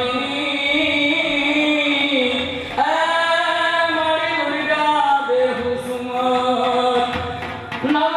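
A man's voice singing a chant-like devotional song into a microphone, in long held phrases that break about three seconds in and again near the end.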